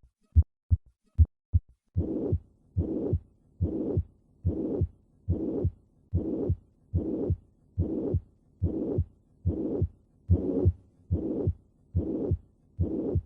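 Heart sounds as heard through a stethoscope, in a mitral regurgitation case. For the first couple of seconds there are only short regular heart-sound beats. Then a systolic murmur fills each beat in a steady repeating rhythm.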